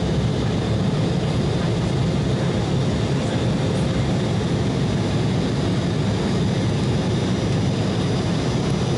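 Steady cabin noise of an Embraer E175 in its climb after takeoff: the wing-mounted GE CF34 turbofan engines and rushing air heard inside the cabin, an even low rumble with a faint steady hum.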